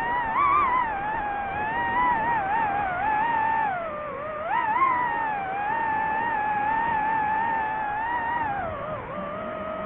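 DJI FPV drone's motors and propellers whining. The pitch rises and falls smoothly as the throttle changes, with a quick rise about half a second in and another near five seconds in.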